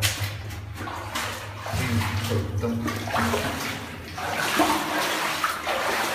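Water splashing and sloshing, with a low steady hum underneath for the first few seconds.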